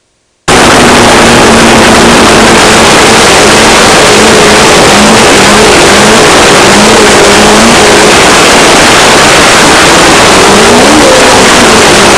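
Off-road race car's engine heard from an on-board camera, loud and distorted, with a dense rush of noise over it. The engine note rises and falls again and again. The sound cuts in about half a second in, after a brief silence.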